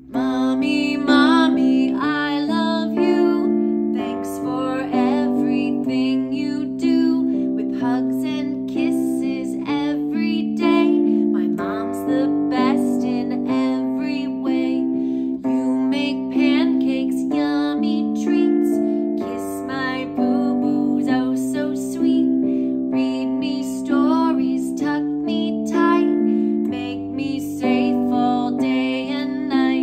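A woman singing a song to her own piano accompaniment, with the piano notes struck in a steady rhythm.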